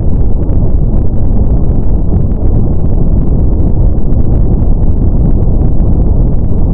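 Steady brown noise: a loud, even, deep rushing hiss weighted heavily toward the low end.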